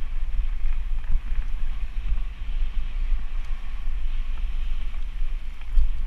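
Wind buffeting the microphone of a camera mounted on a mountain bike while riding, as a heavy, gusting rumble. Under it, the tyres roll and rattle over a dirt trail with small knocks.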